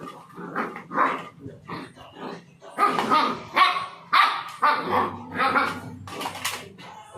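Doberman barking in a rapid run of short barks, about two a second.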